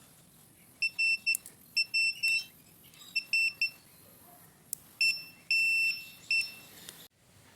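Handheld battery spot welder beeping as it fires welds on nickel strip across lithium cells: short high beeps in quick pairs and threes, a longer beep near the end, with sharp clicks among them.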